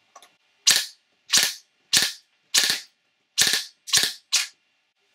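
3D-printed FGC-6FA open-bolt gas-blowback airsoft gun, set up with its long-cycle bolt and number 2 main spring, firing seven sharp shots about half a second apart, each a gas pop with the bolt cycling.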